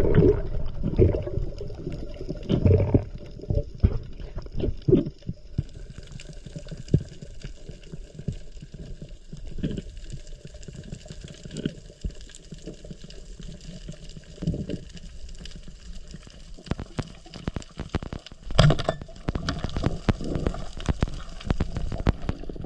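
Underwater sound: a low rumble and gurgling of water, with scattered clicks and knocks and one sharp, louder knock late on.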